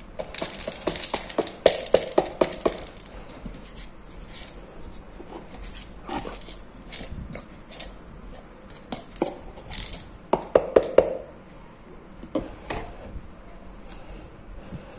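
Water spinach seeds rattling and clicking against a thin plastic tub as it is tipped and tapped to shake them out onto a damp towel, in several bursts of quick clicks with short pauses between.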